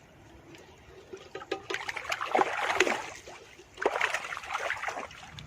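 Water splashing in two bursts, the first longer, with small clicks and drips.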